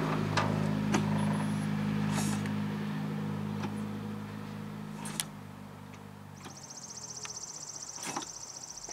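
A vehicle engine running steadily, its low hum fading away over several seconds, with a few scattered clicks. In the last few seconds a high-pitched, rapidly pulsing buzz starts.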